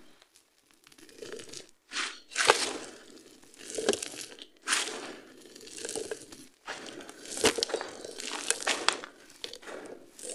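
Dry sand-cement chunks crushed by hand on a hard floor. Gritty crunching with sharp clicks of breaking grains comes in repeated spells about once a second, with short pauses between, as handfuls of grit and gravel are scooped and poured back onto the pile.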